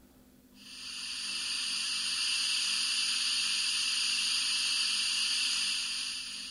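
Digital sound decoder in a Jouef H0 model of the SNCF 140 C steam locomotive playing its cylinder blowdown effect: the steam hiss of the cylinder drain cocks. It swells up about half a second in, holds steady, and fades out at the end.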